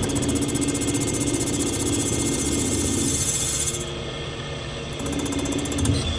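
CNC machine running steadily, a machine hum with a high hiss over it. The hiss and hum drop back about four seconds in and pick up again a second later.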